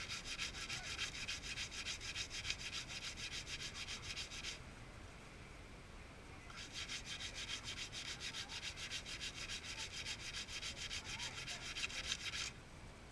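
Hand sanding of a canoe hull with a sanding block: rapid, even back-and-forth rasping strokes. The strokes stop for about two seconds after about four and a half seconds, resume, and stop again near the end.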